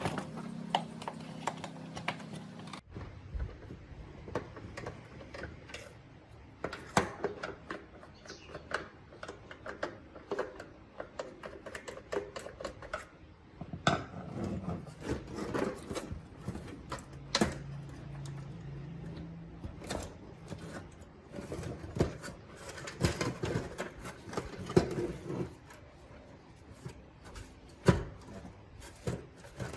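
Irregular clicks, taps and knocks of small plastic and metal parts being handled and worked on by hand, with a faint low hum now and then.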